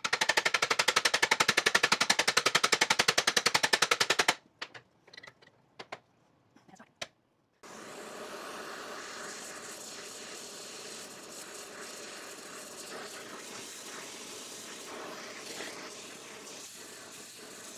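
A fast, even run of metal hammer taps on a rust-seized steel drag link tube for about four seconds. Then a few scattered clicks, and a steady hiss of an oxy-fuel torch flame heating the tube to expand it and break the rust bond.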